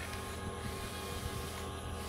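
Huina 1580 remote-control excavator's electric motors and gearboxes whirring steadily with a steady whine.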